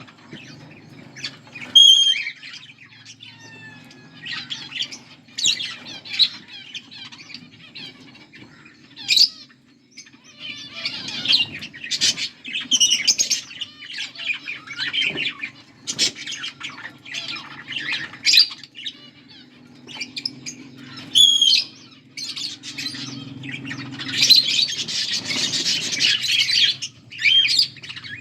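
A pair of budgerigars chirping and squawking in quick, irregular calls, with a dense stretch of chatter near the end.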